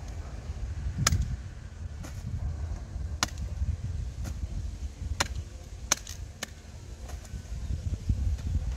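Sharp snaps and knocks, irregular, roughly one a second, as freshly dug cassava roots are broken and cut from the stump and handled, over a steady low rumble.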